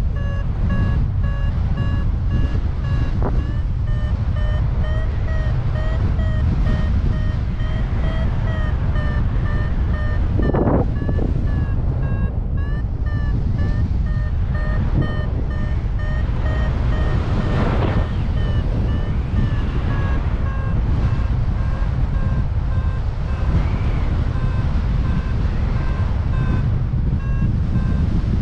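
Paragliding variometer beeping in quick repeated tones that drift a little up and down in pitch, the sign that the glider is climbing in lift. Heavy wind noise on the microphone rumbles underneath.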